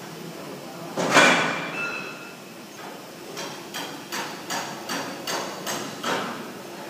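Hammer blows on metal: one loud clang that rings on about a second in, then a steady run of about eight quicker strikes, two to three a second.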